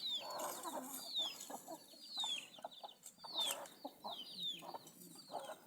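Chickens clucking, faint, with many short high-pitched peeps that fall in pitch, repeated one after another.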